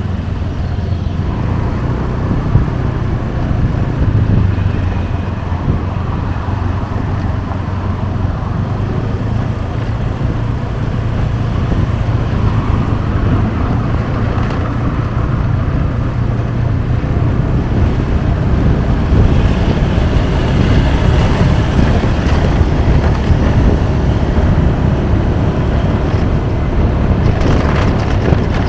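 Steady road traffic on a busy city street, vehicles passing continuously and getting a little louder in the second half, with a few sharp clicks near the end.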